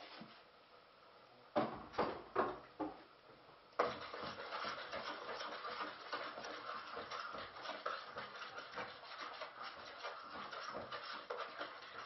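Four sharp knocks of kitchenware, then about four seconds in, food goes into a hot frying pan and sizzles steadily with fine crackling.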